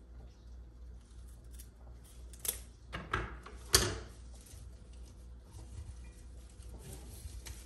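Scissors cutting rose stems and the leafy stems rustling as they are handled on a countertop: a few sharp snips and rustles about two and a half to four seconds in, the last the loudest.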